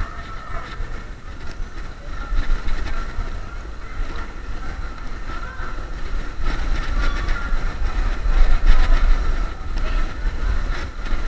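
Riding noise from a Xiaomi M365 electric scooter in motion: wind buffeting the microphone and the scooter's small wheels rumbling over the road, with a faint steady high whine and scattered light clicks.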